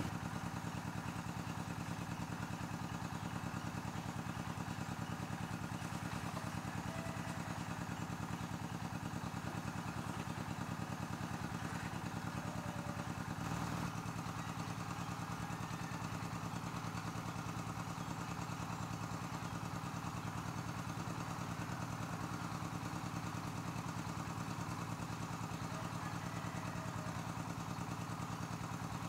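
A small engine idling steadily nearby, a low even hum with a fast regular pulse.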